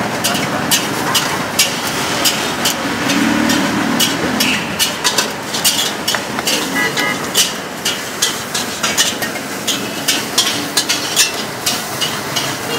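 Metal clinks and taps of a wire noodle strainer and utensils against a stainless steel soup pot and bowls: many quick, irregular knocks over a steady background hum.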